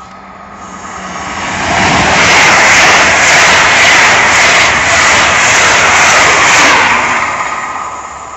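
LNER Azuma (Class 801) electric express train passing through the station at speed. A rushing roar swells over the first two seconds, holds with a beat of wheels about twice a second, and fades in the last second or so.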